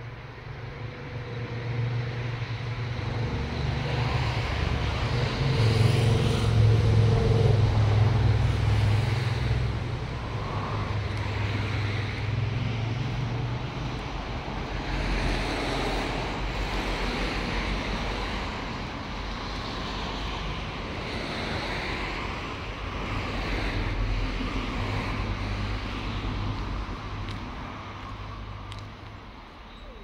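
Road traffic passing close by: a low motor-vehicle engine and tyre rumble that swells over the first several seconds and stays loud, with a second swell later on, then fades near the end.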